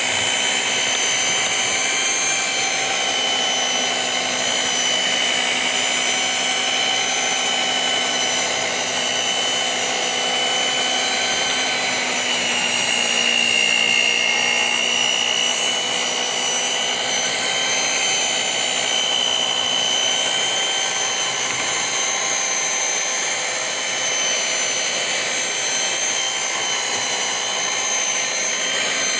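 Electric mixer running steadily as it beats a sweetened batter, its motor whine dipping and rising slightly in pitch a little before halfway.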